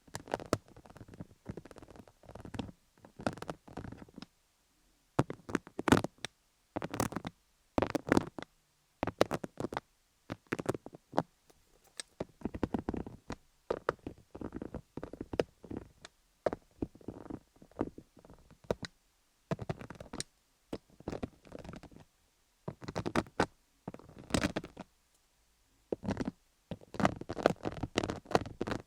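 Microneedle (MTS) derma roller rolled over a rhinestone-covered dummy-head microphone, in repeated short crackly, scratchy strokes with brief pauses between them.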